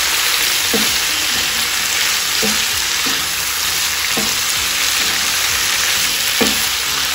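Goat tripe and sliced onions sizzling steadily in hot oil in a frying pan while being stirred with a wooden spatula, with a short scrape of the spatula about every two seconds.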